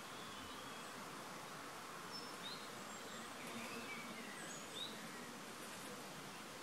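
Garden ambience: a steady, soft outdoor hiss with a few short, high bird chirps about two to five seconds in.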